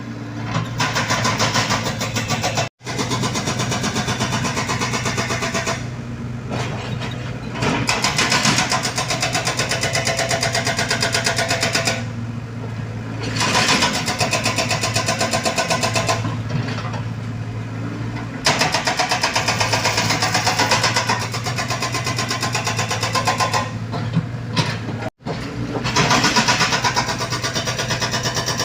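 Diesel engine of a Komatsu mini excavator running steadily at work, its loudness rising and falling every few seconds as the hydraulics take load. Two very short dropouts break the sound, about 3 seconds in and near the end.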